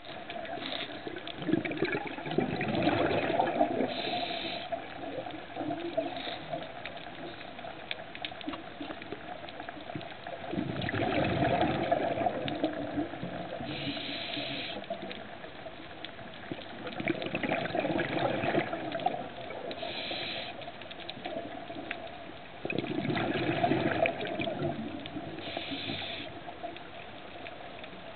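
Scuba diver breathing through a regulator underwater: a gurgling rush of exhaled bubbles lasting about two seconds, then a short hiss of inhalation. The cycle repeats about every six seconds, four breaths in all.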